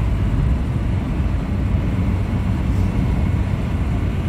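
Steady low rumble of a car driving along a road, heard from inside the cabin: tyre, road and engine noise.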